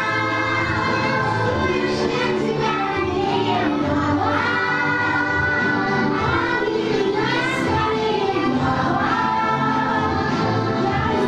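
Young children singing a song together in chorus over instrumental musical accompaniment.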